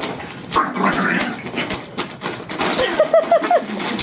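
Plastic bag of dry dog food crinkling and rustling in a run of quick clicks as a small dog noses at it and a foot pushes it.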